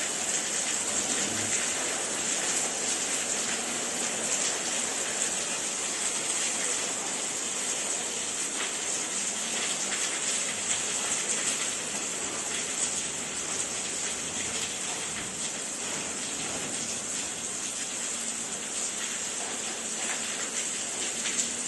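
Steady rain falling on a wet yard and tiled porch: an even hiss with many small drop hits throughout.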